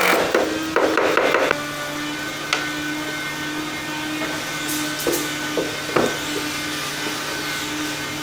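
Wood being worked by hand: quick rubbing and scraping strokes for about a second and a half. Then a steady hum with a few single sharp knocks on wood.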